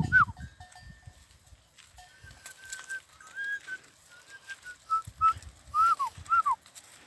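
A person whistling a run of short notes, several of them slurring down in pitch, to call a small herd of sheep and goats along. Soft footsteps on dry ground come near the end.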